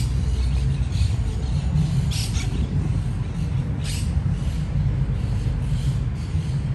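Outdoor city ambience: a steady low rumble of traffic, with several short, high-pitched bird calls scattered through it.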